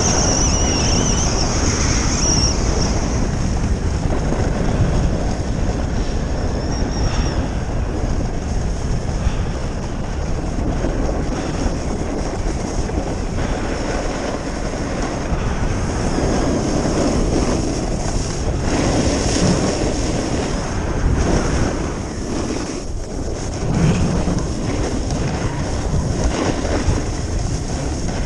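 Wind buffeting the microphone of a moving skier, with the steady hiss and scrape of skis sliding on groomed, packed snow. The noise swells and eases a little as the skier turns, without stopping.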